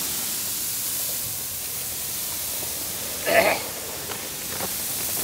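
Puffed rice pouring in a steady stream from a plastic sack onto a large steel plate: a continuous hissing rush of grains. A brief louder sound breaks in about three seconds in.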